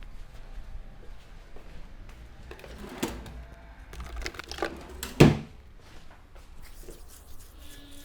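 Hands of a barber rubbing and working over a client's head, hair and skin during a massage, a soft rustling, with a sharp hit about three seconds in, a few lighter ones after it, and the loudest hit just past five seconds.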